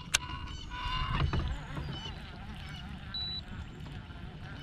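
A single sharp click from a baitcasting reel near the start, then a few short honking calls and scattered high chirps from birds.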